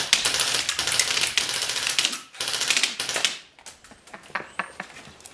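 A JG HK 416 airsoft electric gun firing on full auto, one burst of about two seconds and a second burst of about a second, with BBs smacking into a chocolate Easter egg and the wooden bench; a few scattered ticks follow.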